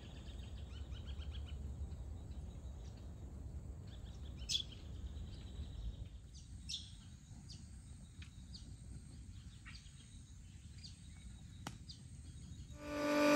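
Faint outdoor ambience by a river: a low rumble that eases off about halfway, with scattered short bird chirps and a single click near the end. In the last moment a steady machine hum starts up.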